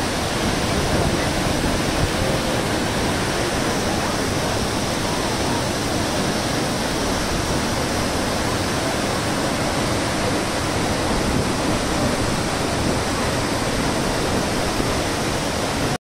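Gundichaghai waterfall on the Musala river, a heavy torrent plunging over rock into its pool: a loud, steady rush of falling water with a deep rumble beneath.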